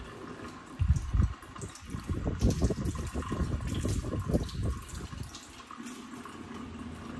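Kitchen faucet running into a stainless steel sink while a monkey's hands are rubbed and rinsed under the stream, with irregular splashing for about four seconds before the flow settles to a steadier run.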